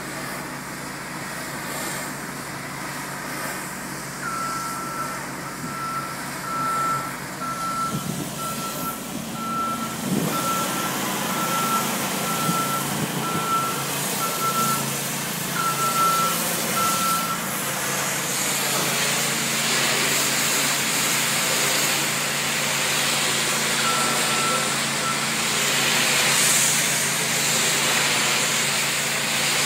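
A boom lift's motion alarm beeps about once a second over a steady engine, then stops after about 17 seconds and briefly returns near 24 seconds. From about 18 seconds a loud, steady hiss of pressure-washer spray takes over.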